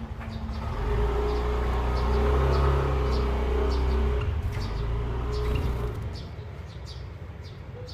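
A motor vehicle going past, its engine growing louder over the first second and fading away by about six seconds in, over short high bird chirps repeating throughout.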